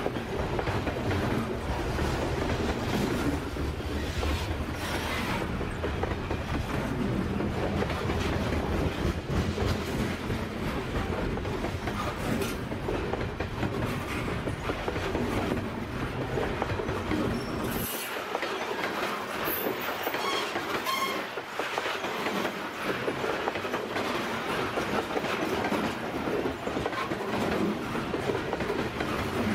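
Canadian Pacific freight cars rolling past close by: steady wheel-on-rail noise with rhythmic clicking as the wheels pass over rail joints. The deep rumble drops away about eighteen seconds in, and a brief high wheel squeal comes a couple of seconds later.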